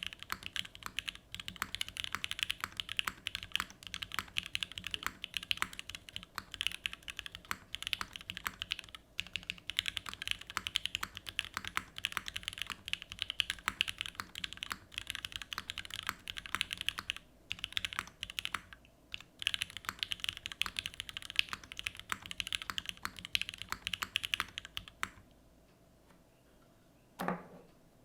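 Continuous fast typing on an RME Studio Emery65 gasket-mount mechanical keyboard with lubed, filmed Gateron X linear switches on an aluminium plate, with a brass bottom and KeyKobo WoB keycaps. The typing stops about three seconds before the end, and one brief falling sound follows.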